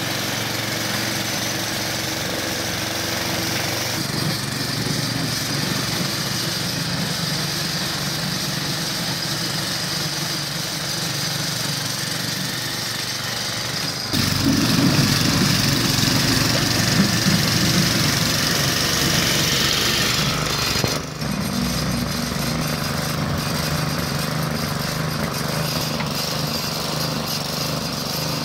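Small petrol engine of a walk-behind two-wheel tractor running steadily, driving a rotary sweeper brush over tarmac. About fourteen seconds in the sound becomes louder and deeper, then eases back a little some seven seconds later.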